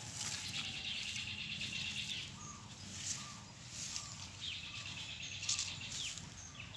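Young chicks dust-bathing in dry dirt, scuffling and flicking their wings, under two long, high trilling chirps with a few short chirps between them.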